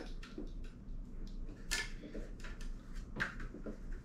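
Handling noise from a ring light and its tripod stand: soft scrapes and light clicks as the power cord is wound around the metal stand pole, with a sharper click near the middle and another about three seconds in.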